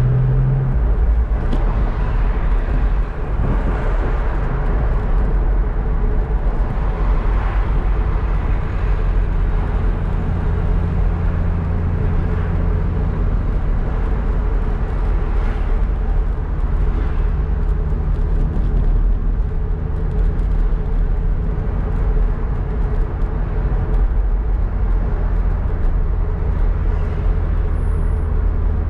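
Car driving at town speed, heard from inside the cabin: a steady engine hum with tyre and road noise. The engine tone steps up and down in pitch a few times as the car changes speed.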